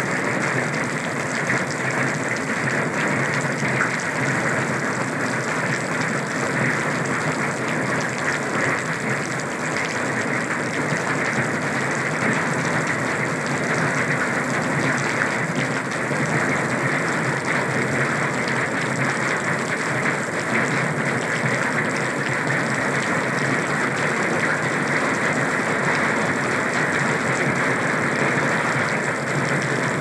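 Steady rain falling: a constant, even hiss of raindrops that holds the same level throughout.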